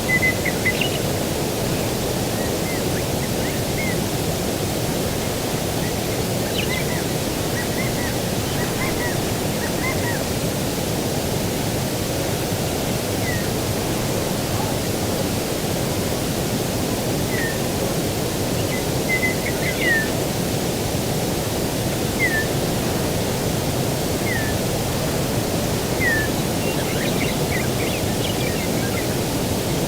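A steady low rush of distant ocean surf, with birds giving short chirps every few seconds over it.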